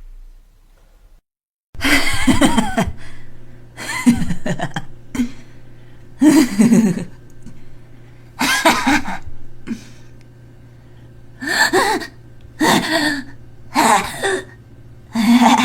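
A woman's short evil laughs, about ten separate brief bursts one after another with pauses between, each under a second long.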